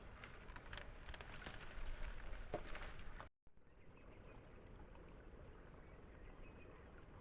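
Irregular splashing and sharp clicks in water, busiest about two seconds in, then, after a cut, a steady hiss with a few faint high chirps.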